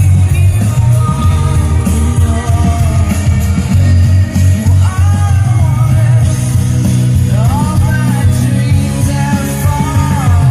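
A rock song with a singing voice and heavy, steady bass, played back through a vintage Trio KA-2600 solid-state amplifier and its speakers.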